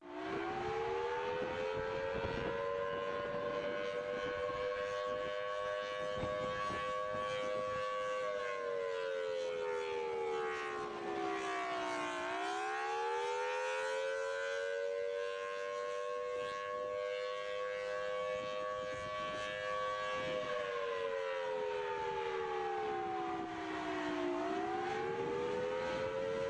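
Outdoor civil defense warning siren sounding its wail, several tones together: it starts abruptly, rises to a steady pitch, then twice slides down and climbs back up, about every twelve seconds. This is the siren signal used to warn of a tornado.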